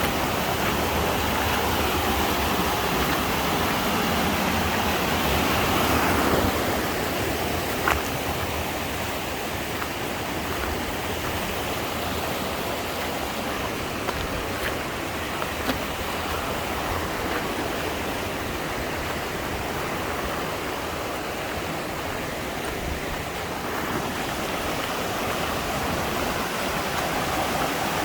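Mountain stream rushing steadily over rocks, with a couple of brief clicks along the way.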